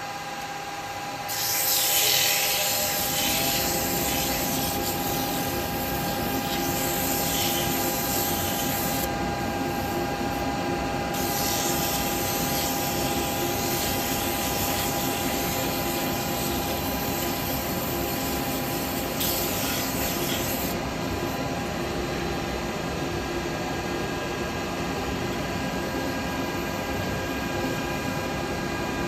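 Wood lathe running with a steady motor whine while a tool works against the spinning wood of a small bowl, a rough hissing cut that starts about a second in and brightens and eases every several seconds.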